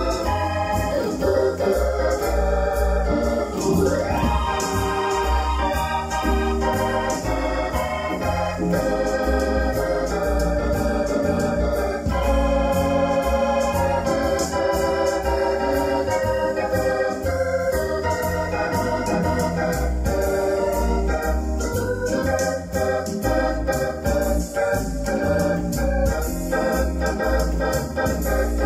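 Electronic keyboard played two-handed with an organ voice: a wavering melody over chords, with a rhythmic bass line underneath.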